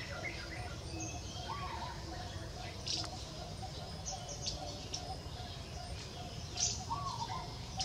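Outdoor ambience of birds chirping: scattered short high chirps and a couple of brief arched calls over a steady low background rumble.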